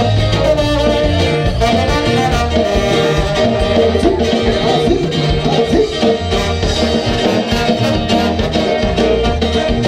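Latin dance music, salsa-like, playing loud and unbroken with a steady pulsing bass beat.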